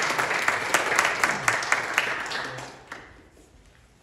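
Audience applauding, a burst of clapping that dies away about three seconds in.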